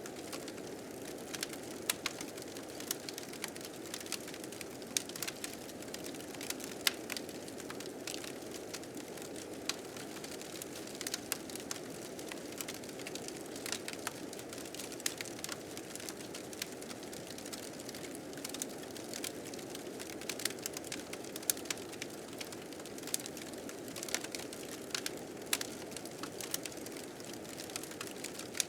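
Wood fire crackling with frequent small, irregular pops over a steady rush of blizzard wind.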